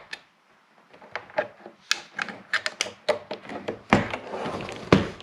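Handling of a TRS-80 Model 100 portable computer: a run of sharp plastic clicks and knocks, with two heavier thunks about four and five seconds in.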